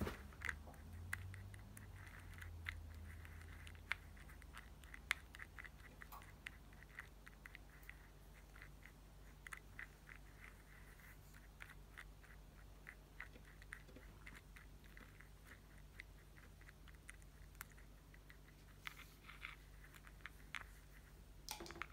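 Paintbrush stirring and dabbing watery paint with purple wax flecks in a plastic palette well. It makes faint, irregular small wet clicks and taps, dozens spread throughout.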